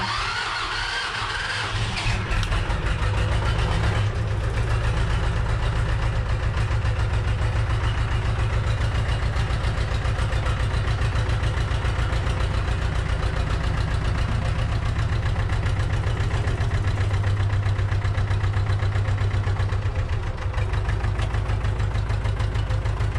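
Tractor engine heard from inside the cab, started with the starter and catching after about two seconds, then running steadily at idle with an even low beat. Its note shifts slightly near the end.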